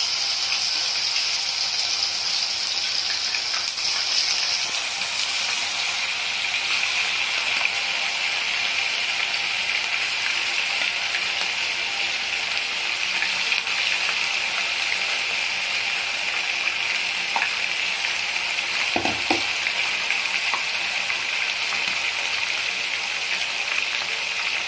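Batter-coated anchovies deep-frying in hot oil in a kadai: a steady, loud sizzle. About five seconds in, the sizzle drops a little in pitch.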